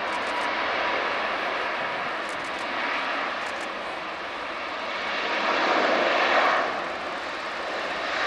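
Airbus A380-861's four Engine Alliance GP7200 turbofans running as the airliner taxis: a steady jet rush that swells about six seconds in, then eases.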